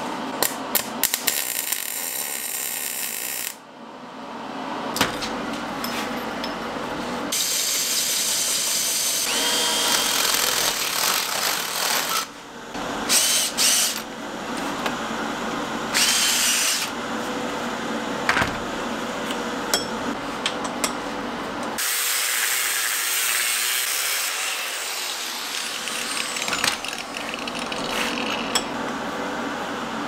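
Workshop fabrication sounds in a run of short cuts: a handheld power tool running on steel parts, with sharp metallic clicks and knocks in between.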